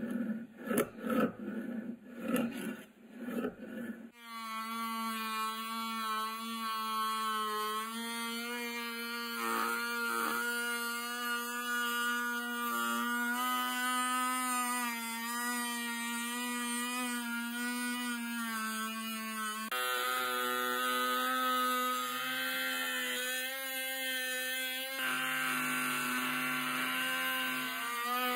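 A small hand file rasps back and forth on the steel ratchet wrench head, about two strokes a second, for the first four seconds. Then a rotary tool with a sanding drum starts and runs with a steady whine, with a rougher grinding hiss in the later part as the drum works against the metal.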